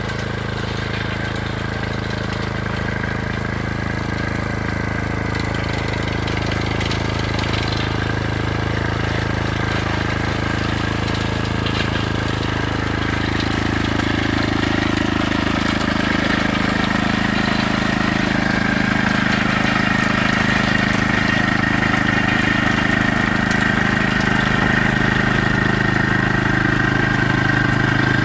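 A vehicle's engine running steadily with a low hum and a thin higher whine, growing slowly louder over the stretch.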